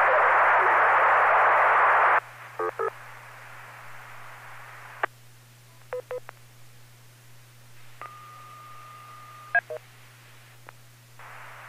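Radio static hiss for about two seconds, then short touch-tone (DTMF) beeps and a single held tone of about a second and a half, over a steady low hum. These are control tones being sent to a ham radio remote base to change its frequency.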